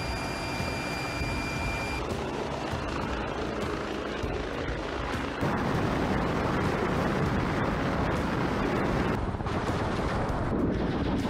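Military helicopter in flight, a dense rotor and engine din, mixed with gunfire and the launch of rockets. A steady high turbine whine stands out for the first two seconds, and the sound grows louder and harsher about five and a half seconds in.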